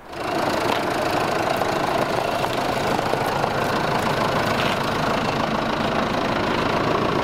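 Jeep Cherokee (Liberty) KJ's engine idling steadily.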